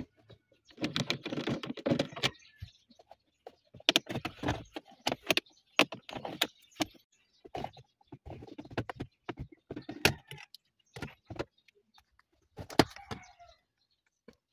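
Plastic clicks and rattles as the automatic gear shifter knob and the centre-console shifter trim panel of a Toyota Vios are worked loose by hand, coming in irregular bursts with short pauses between, loudest about four seconds in and near the end.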